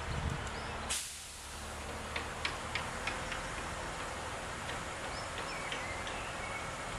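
Steady background noise at a railway level crossing with its barriers down and no train passing yet, overlaid with short, irregular ticks a few times a second.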